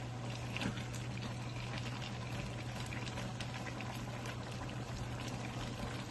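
Vegetables and broth simmering in a pan on the stove, a steady fine bubbling crackle, over a constant low hum.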